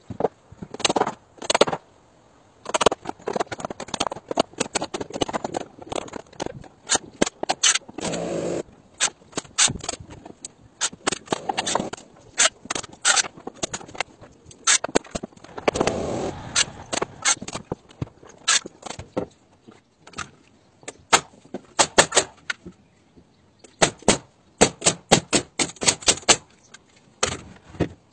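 Carpentry on a timber rafter frame: a long string of sharp knocks and clacks from tools and wood, coming in quick runs, with two short stretches of continuous noise about eight and sixteen seconds in.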